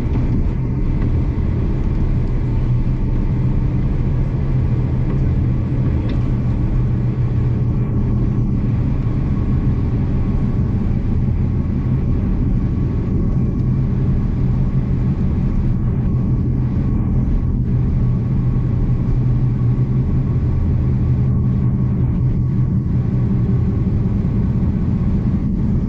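Passenger train carriage rolling along the line, heard from on board: a steady low rumble of wheels and running gear.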